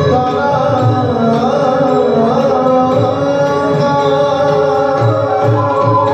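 Classical Indian dance music for an Odissi performance: a voice sings long, gliding melodic lines over steady hand-drum strokes.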